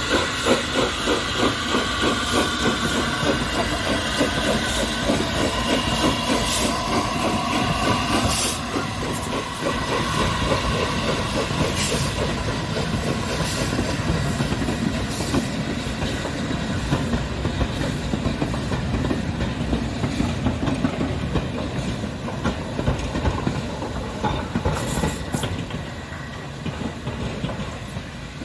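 Steam locomotive on the move with a fast rhythmic beat that slowly fades as it draws away.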